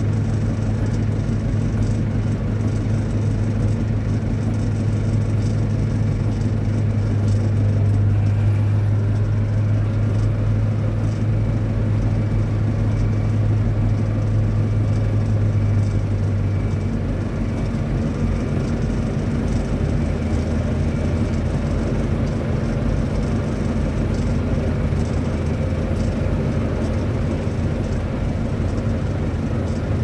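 Hydraulic vibratory pile hammer clamped on a steel piling casing, running with a steady deep hum. About two-thirds of the way through the strongest hum drops away and a lower machine drone carries on.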